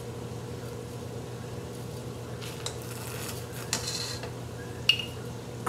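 A stainless turkey baster clinking against a steel wok and a glass jar as grease is drawn up and squirted into the jar: a few light clinks, a short rush of noise about four seconds in, and a sharp knock near five seconds, over a steady low hum.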